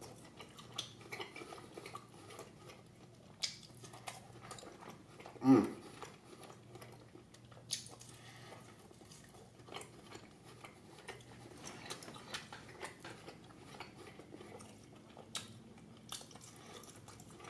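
Knife and fork clicking and scraping on a plate in scattered light taps while steak is cut and eaten, with a short hum from the eater about five and a half seconds in.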